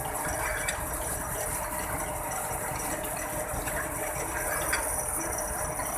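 Tow truck winch gear rattling steadily as a hand lever on its drive shaft is worked, with a few faint clicks.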